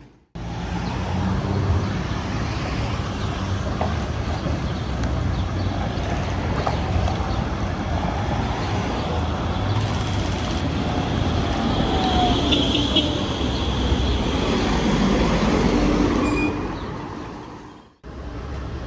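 Steady rumble of a SEPTA PCC II streetcar and passing street traffic, with a brief high tone about twelve seconds in. The sound fades out near the end.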